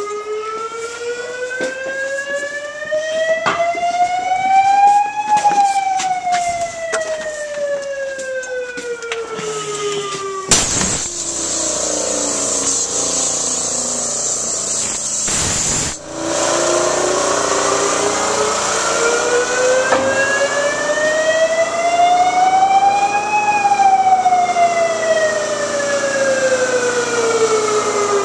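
Fire siren wailing, its pitch climbing slowly for several seconds and then falling, twice over. About a third of the way in, a loud rushing hiss cuts in and drowns it for about five seconds, then stops suddenly.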